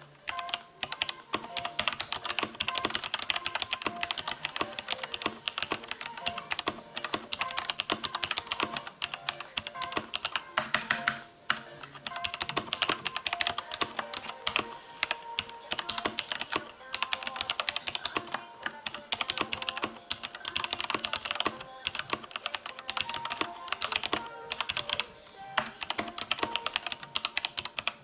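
Fast, continuous typing on an Ajazz K620T mechanical keyboard with pink switches: a dense patter of key clicks and keycap clacks, broken by two short pauses, about eleven seconds in and again near twenty-five seconds.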